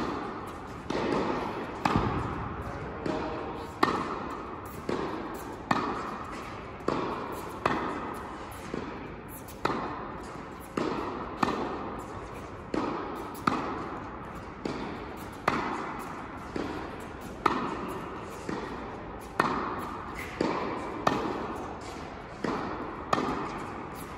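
Tennis balls being struck by rackets and bouncing on the court during a rally: a sharp pop about once a second, each echoing in the large indoor hall.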